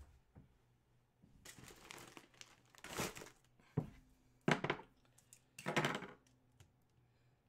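Plastic wrapping crinkling and rustling in about five short bursts as it is handled.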